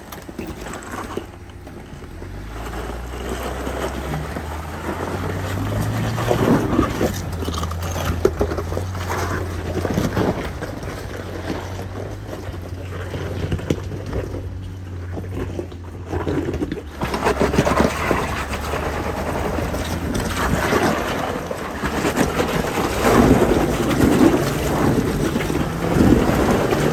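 A Jeep's engine running at low revs as it crawls a rocky off-road trail, with scattered knocks and crunches and wind noise on the microphone. The low engine hum is steady for the first two thirds and then fades under louder rough noise.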